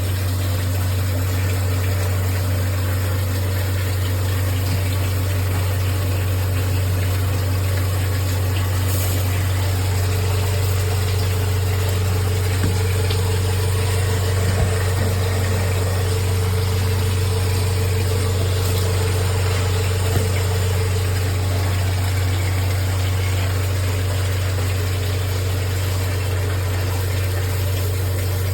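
Shower head spraying water steadily, an even hiss over a strong steady low hum.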